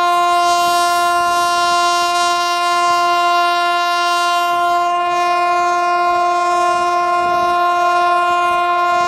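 Locomotive horn held as one long steady note, heard from a carriage of the moving train, sounding as a warning for the level crossing ahead.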